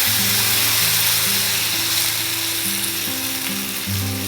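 Millet batter frying in a little oil on a hot tawa, a steady sizzle, under background music with slow held notes.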